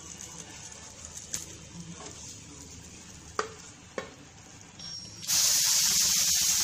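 A few light scrapes and taps of a spatula on a dosa tawa as a dosa is lifted off. About five seconds in comes a sudden loud, steady hiss: water splashed onto the hot empty tawa, sizzling into steam.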